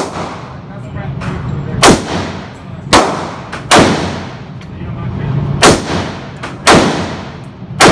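AR-15 rifle fired in single shots, about seven in all, roughly a second apart at an uneven pace, each shot ringing out in the reverberant indoor range.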